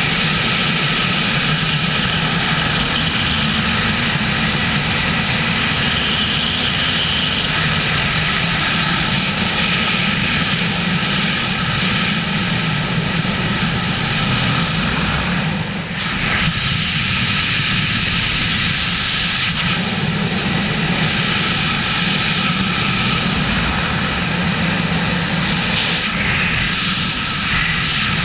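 Wind rushing over the microphone in wingsuit freefall, a loud steady rush with a brief dip about sixteen seconds in.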